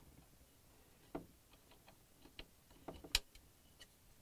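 Small plastic clicks and ticks as a wire plug is pressed into a refrigerator's plastic LED light assembly, the sharpest click about three seconds in.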